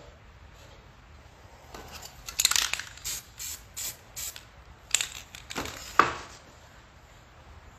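Aerosol spray paint can hissing in about eight short bursts over roughly four seconds: a slightly longer spray first, then a run of quick puffs.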